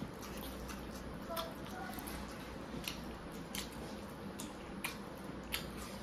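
People eating rice meal by hand: wet mouth smacks and chewing clicks at irregular intervals, about one or two a second, over a faint steady low hum.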